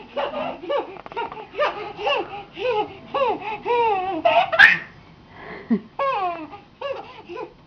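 Baby girl laughing in a run of short, high-pitched squealing bursts that fall in pitch, a few to the second, with a brief pause before more near the end. A sharp click-like noise about four and a half seconds in.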